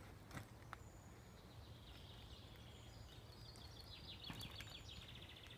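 Small woodland songbirds singing faintly: a warbled phrase about two seconds in, then a rapid trill of quickly repeated notes near the end, over a faint low rumble and a couple of soft footsteps.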